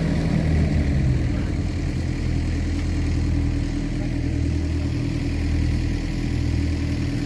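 Excavator diesel engine running steadily, its pitch dipping slightly about a second in, during the recovery of a mini excavator bogged in peat.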